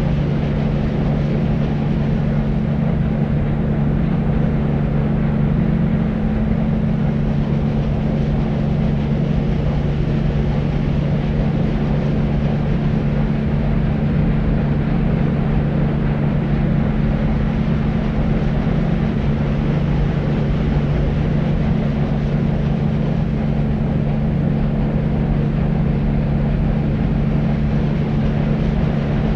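Deep white noise for soothing a baby: a steady, unchanging rumbling hiss weighted to the low end, with a constant low hum running under it.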